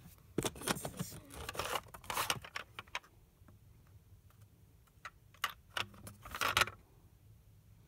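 Plastic cassette tape cases clattering and scraping against each other as they are handled, in two bouts of rapid rattling clicks, the second starting about five seconds in.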